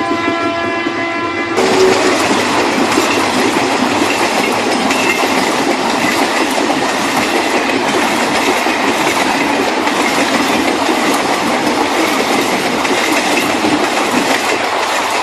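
Battery-operated toy train: an electronic horn tone stops about one and a half seconds in, then the train's motor and wheels rattle steadily along its track.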